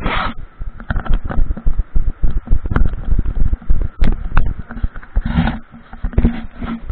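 Camera handling noise: irregular knocks, clicks and rubbing as the camera is fumbled against clothing, with a few short rushes of noise.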